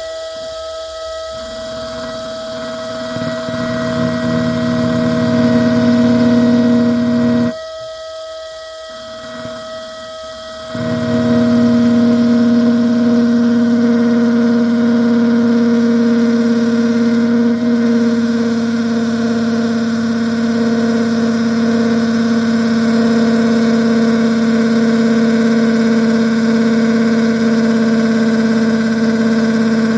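Power drill running with an ordinary (non-glass) bit grinding into windshield glass to stop-drill the end of a crack, a steady high whine over the motor hum. The drill stops for about three seconds after roughly seven seconds, then starts again and runs on.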